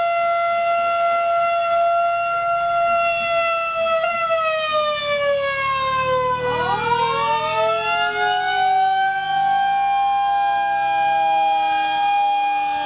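Sirens sounding: a steady wailing tone that, about four seconds in, starts sliding slowly down in pitch, while a little over six seconds in a second siren rises in pitch and holds a higher steady note. A vehicle passing close adds a brief low rumble in the middle.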